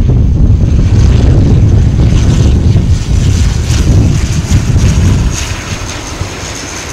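ATR 42-600 twin turboprop landing close by: its engines and propellers run with a steady high whine over a heavy low rumble, and the sound falls away from about five seconds in as the aircraft rolls past after touchdown. Gusty wind buffets the microphone.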